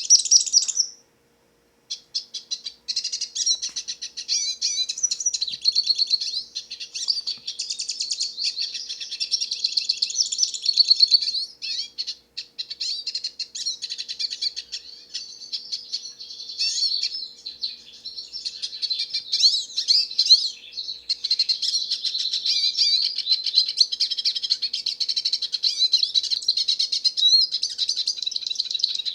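Hooded siskin singing: a long, rapid, twittering song of high chirps and trills that runs almost without pause, after a brief break about a second in.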